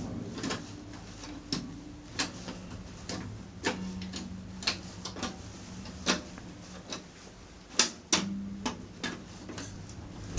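A run of sharp clicks or taps at an irregular pace, roughly one or two a second, over a faint low hum.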